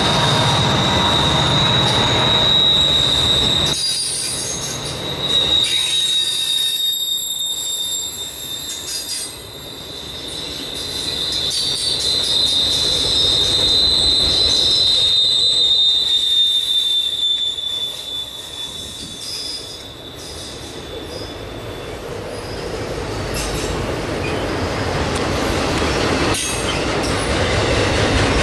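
Autorack freight cars rolling past with a steady rumble and clatter of wheels on rail. A thin, high wheel squeal rides over it and fades out a little after two-thirds of the way through.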